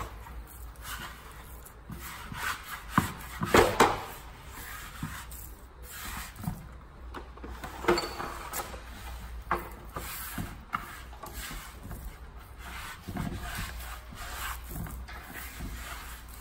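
Butter and granulated sugar being creamed by hand in a wooden bowl: irregular rubbing, squishing and gritty scraping of sugar on wood, with a few louder knocks between three and four seconds in.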